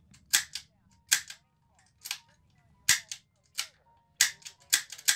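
ASG Dan Wesson 8-inch airsoft revolver having its trigger pulled over and over in double action, each pull ending in a sharp metallic snap. There are about eight snaps, each a quick double click, under a second apart and coming faster near the end.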